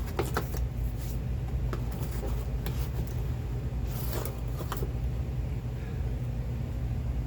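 Cardboard shipping box being opened by hand: scattered light clicks and taps of the flaps, with a longer scraping rustle about four seconds in, over a steady low background hum.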